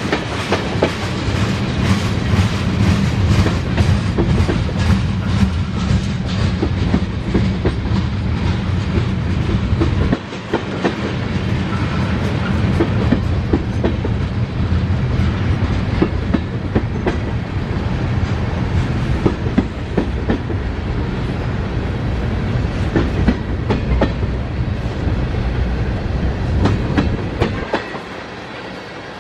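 Cars of a Norfolk Southern freight train rolling past, a steady rumble with rapid clickety-clack of wheels over rail joints, quieter near the end.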